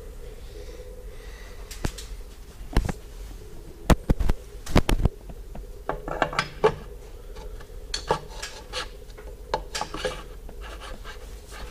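Irregular sharp metallic clicks and clinks with some rubbing and scraping: hand work on the throwout bearing and clutch fork inside a G56 manual transmission's bell housing. The clinks bunch together around the middle.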